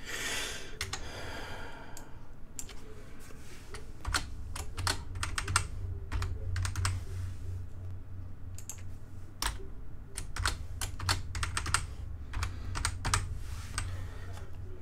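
Computer keyboard typing: keys tapped in irregular short runs of clicks as a password is entered.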